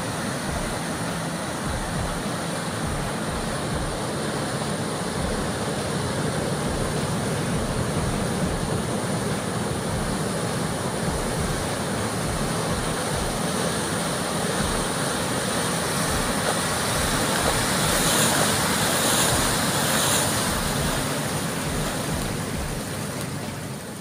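Surf breaking and washing in over a rocky shore, a steady rush of waves that swells a little louder for a few seconds near the end.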